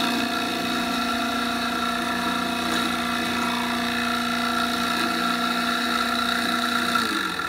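Nova Voyager DVR drill press's direct-drive motor running with a steady whine while a 1/2-inch bit drills into pine. Near the end its pitch slides down as the machine stops itself automatically at the preset depth.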